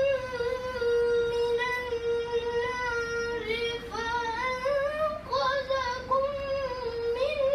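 A boy's voice reciting the Quran in a melodic, chanted style, holding one long steady note for about two seconds, then moving into ornamented phrases that waver and glide up and down in pitch.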